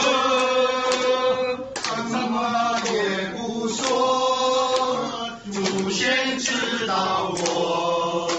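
A group of men singing a Chinese drinking song together in loud unison, with a few sharp hand claps between phrases.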